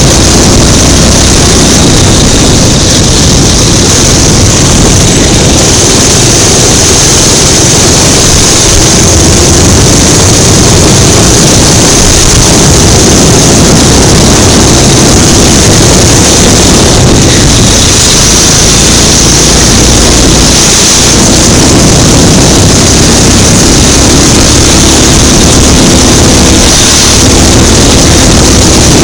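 Kart engine running hard at racing speed, heard loud and steady from a camera mounted on the kart, its pitch wavering as the throttle changes.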